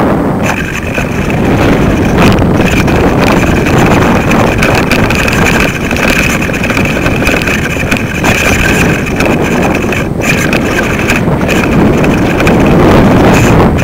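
Wind buffeting the microphone of a small camera rig hanging from a kite in flight: loud, continuous low noise that swells and dips, with a faint steady high whine behind it.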